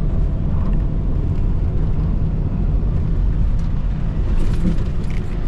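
Strong gusty wind buffeting the microphone: a loud, heavy low rumble that rises and falls without a break.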